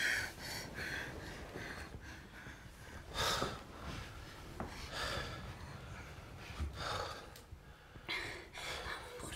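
A man breathing heavily, with a few loud breaths a second or two apart.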